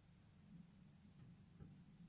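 Near silence: a faint, steady low room hum.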